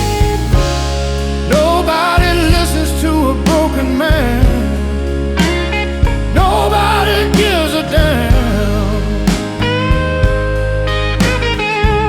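Slow electric blues with no vocals: a lead electric guitar plays bent, gliding notes over bass and drums.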